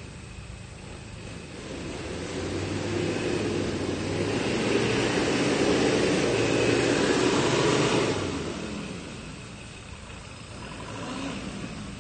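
Off-road 4x4's engine revving hard under load as it climbs a steep muddy track. It grows louder from about two seconds in, holds high for several seconds, then drops away after about eight seconds.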